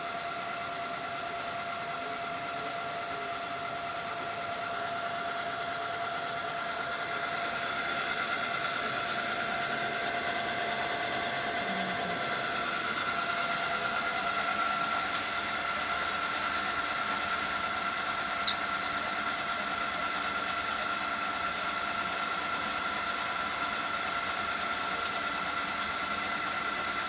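Steady mechanical hum and whir of a DTF printer running, growing slightly louder a few seconds in, with a single sharp click about two-thirds of the way through.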